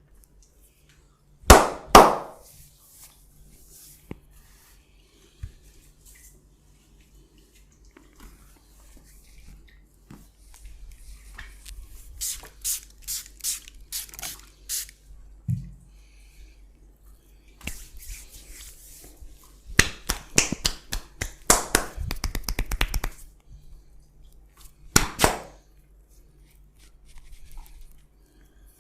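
Massage strokes of hands slapping on skin: two hard slaps a second and a half in, a run of slaps midway, a fast flurry of rapid strikes later on, and two more slaps near the end.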